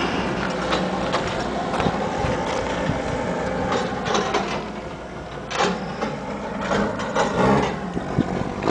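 2005 Ski-Doo Summit snowmobile's two-stroke engine running steadily at idle, a rattly mechanical sound with scattered sharp clicks.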